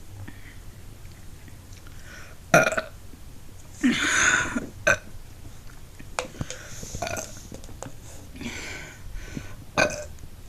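A woman burping several times. The longest burp lasts under a second, about four seconds in, with shorter ones later, and sharp clicks fall between them, the loudest a little over two seconds in.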